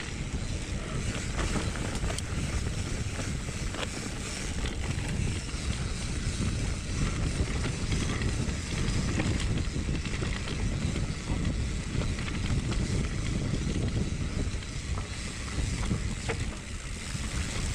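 Wind rumbling on the microphone while riding down a rough trail, with scattered knocks and rattles from going over rough ground.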